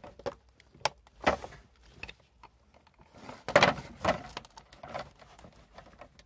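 Sharp plastic clicks as wiring connectors are pushed together, then a cluster of knocks and rattles as the plastic dash console of a 2005 Ski-Doo snowmobile is handled and set back in place. The loudest cluster comes about three and a half seconds in.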